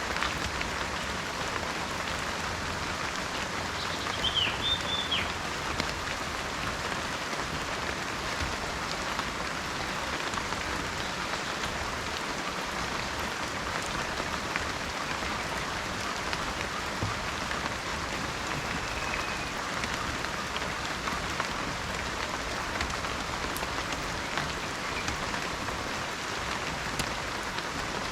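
Steady heavy rain in a tropical rainforest, an even hiss of falling drops, with a short bird chirp about four seconds in.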